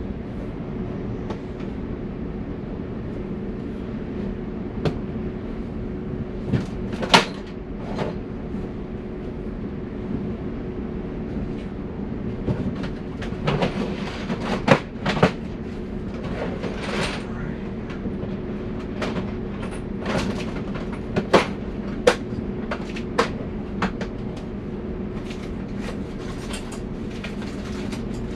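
A steady mechanical hum with two low, even tones, over which come scattered light clicks and taps of hand tools and solder being handled against a circuit board, thickest in the second half.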